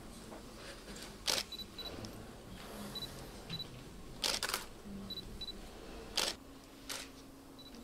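Camera shutters firing several times at a posed group photo, some clicks in quick pairs. Between them come short high beeps, mostly in pairs, typical of cameras confirming focus.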